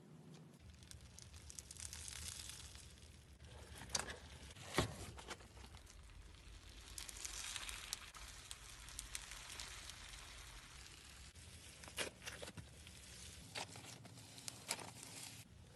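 Slime being squeezed and stretched close to the microphone: a soft crackling, tearing noise with several sharp pops scattered through, over a faint steady low hum.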